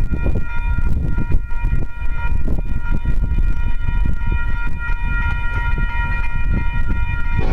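Grade-crossing warning bell ringing continuously with the gates down, its metallic ring steady over a low rumble.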